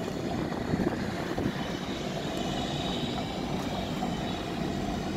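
Steady outdoor background noise, a low rumble with no distinct event.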